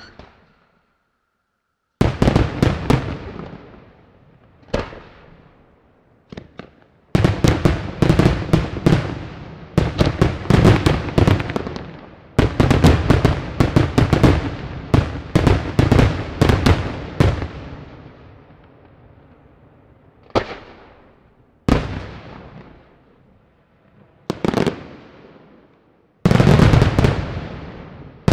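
Daytime aerial fireworks by Colangelo Fireworks bursting in rapid volleys of loud bangs, each trailing off in echo. The volleys start about two seconds in, come in clusters with short gaps, and a few single bangs fall near the end.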